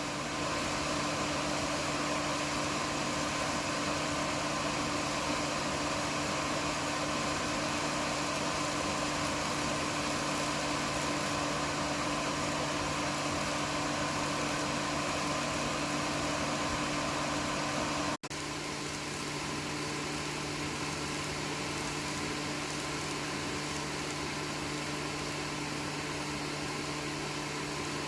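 Steady whir of an N gauge model train's motor running, with a constant hum. It cuts out for an instant about two-thirds of the way through and then carries on slightly quieter.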